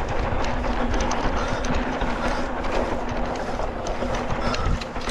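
Mountain bike descending a dirt trail: a steady rush of tyre and wind noise with frequent rattling clicks.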